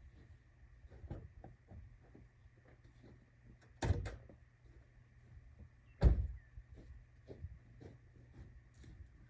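Faint handling clicks and rustles, with two sharp knocks about two seconds apart, the second one louder.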